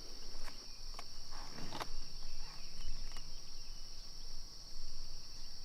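Crickets chirring steadily, with a few faint clicks.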